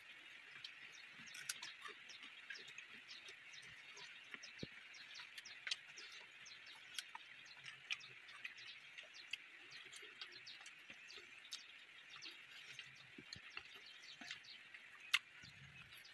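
Small, scattered clicks and ticks of corn kernels being prised off the cob with the fingers and dropping onto a banana leaf, over a steady, high background of chirping.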